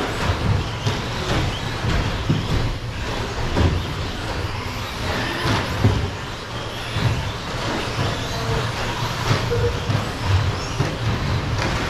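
A pack of electric RC short course trucks racing on an indoor carpet track: motors whining as they accelerate, with frequent knocks and clatter as the trucks land jumps and bump the track boards.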